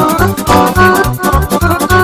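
Romanian band playing a fast sârbă folk-dance tune, with a quick melody over an even bass beat of about four strokes a second.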